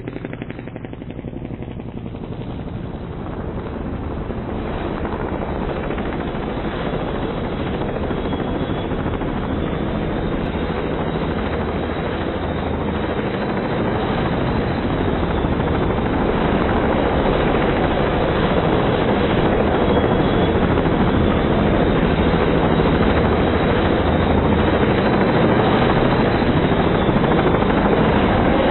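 Helicopter running, with a fast, steady rotor chop, growing steadily louder over the span.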